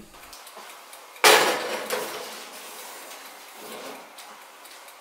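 Metal baking pan clattering against the oven's wire rack, one sharp clatter about a second in that fades over about a second. A softer knock follows later.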